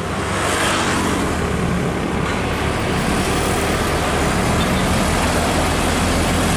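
Diesel engine of a MAN tractor unit running steadily as it pulls a loaded low-bed trailer toward the listener, with tyre and road noise, slowly growing louder.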